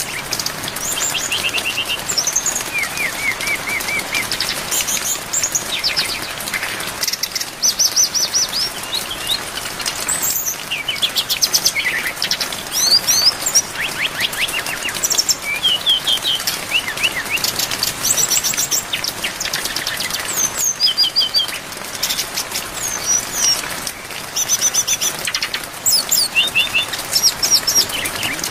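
Brown-chested jungle flycatcher (SRDC) singing a fast, varied run of short trills and whistled phrases packed with mimicked song fillers, over a steady hiss of rain.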